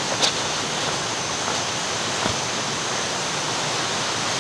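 Waterfall rushing: a steady, dense noise of falling water.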